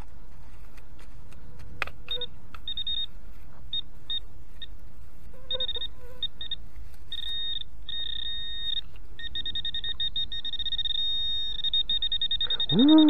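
Metal detector beeping on a buried metal target: short high beeps, scattered at first, then a fast, nearly unbroken pulsing for the last few seconds as it closes in on the spot. A short voice sound falls in pitch near the end.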